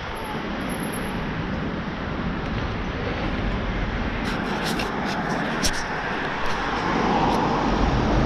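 Steady road traffic noise with wind on the microphone, a few sharp clicks about halfway through, and the sound swelling slightly near the end.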